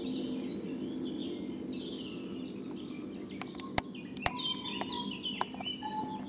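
Birds chirping and calling, with two sharp clicks a little under four seconds in, about half a second apart.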